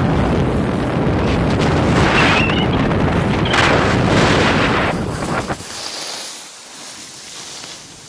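Loud wind noise buffeting the microphone, which cuts off suddenly about five and a half seconds in, leaving a much quieter outdoor hiss.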